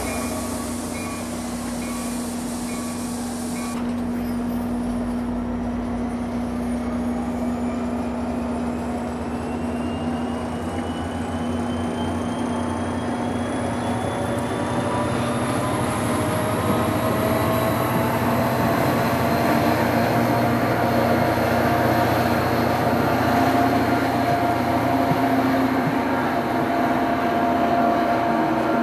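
NJ Transit diesel-hauled commuter train, a GP40PH-2 locomotive with Comet coaches, pulling through the station with steady wheel-on-rail rumble. A whine rises in pitch from a few seconds in as it gathers speed, then holds steady.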